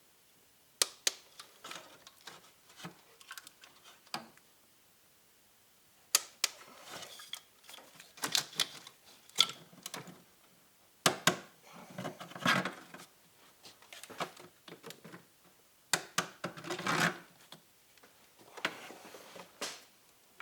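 Ratchet and torque wrench clicking in short irregular runs as the Ford 6.0 Power Stroke diesel's injector hold-down bolts are tightened and torqued down, with brief pauses between.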